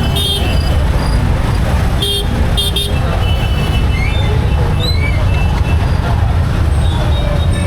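Vehicle horns honking in road traffic: one short toot at the start, then two more in quick succession about two seconds in, over a steady low rumble of traffic.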